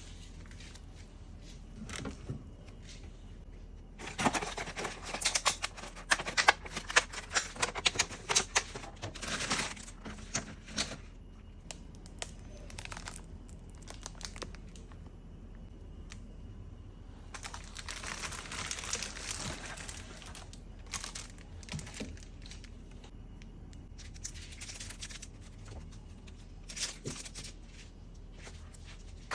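Packaging being handled, crinkling and rustling in three bouts of dense crackling, the longest and loudest from about 4 to 11 seconds in, with a few scattered clicks and taps between.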